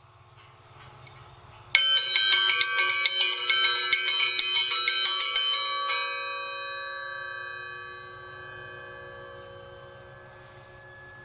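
Hand-forged dinner triangle rung with its forged clanger: a fast run of metal strikes starting suddenly about two seconds in, about four seconds long, then the triangle left to ring out and slowly fade.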